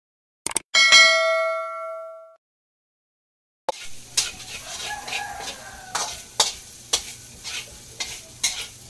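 A short click and a bell-like ding sound effect that rings out and fades over about a second and a half. After a short silence, food sizzles in a frying pan, with a utensil clinking against the pan every half second or so as it is stirred.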